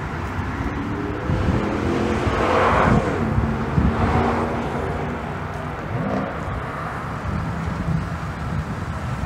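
The 2007 Chevrolet Silverado 1500's 5.3-litre V8 engine running. Its pitch rises about two seconds in, peaks around three seconds, then falls back to a steady run.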